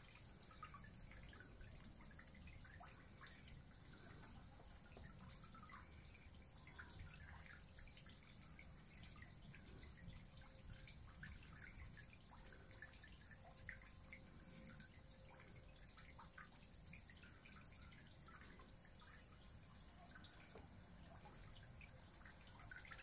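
Near silence: faint background noise with many small scattered ticks and no thunder rumble standing out.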